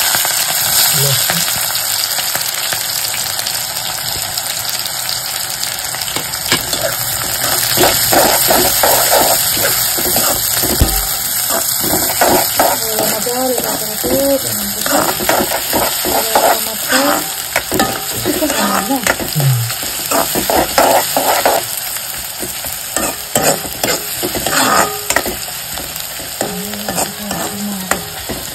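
Sliced onions and dried red chillies frying in hot oil in a kadai: a steady loud sizzle, strongest at the start. A metal spatula stirs and scrapes through the onions, with a run of short strokes through the middle.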